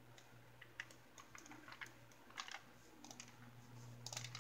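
Faint ticks and light rustling as stiff, crinkled dyed paper sheets are turned by hand one after another, over a low steady hum.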